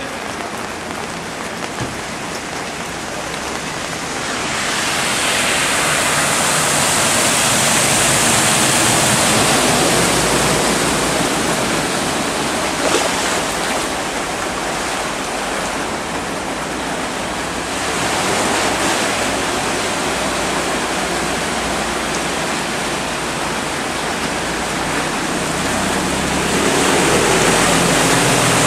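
Heavy rain and rushing floodwater hissing steadily, swelling louder at times. Near the end a vehicle ploughs through the deep water close by, and its splashing spray is the loudest part.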